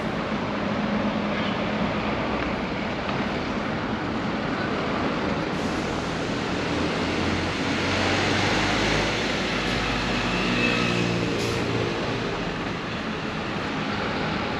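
City street traffic noise, with a vehicle passing close by whose low engine hum grows louder a little past halfway, then fades.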